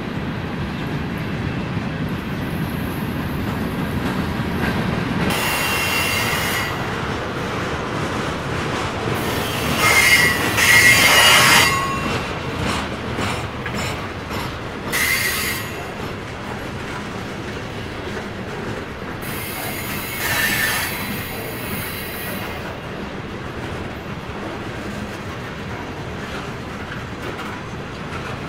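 Freight cars of a BNSF manifest train rolling past: a steady rumble of wheels on rail, broken four times by bursts of high wheel squeal, the loudest about ten to twelve seconds in.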